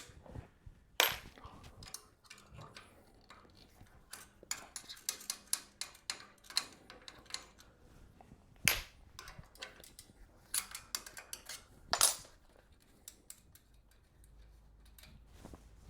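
Irregular clicks, clinks and knocks of bolts, nuts and tools against the bed frame's bars as a bottom bar is unbolted, with a few sharper knocks about a second in, near the middle and about three quarters through, and quick runs of small clicks between.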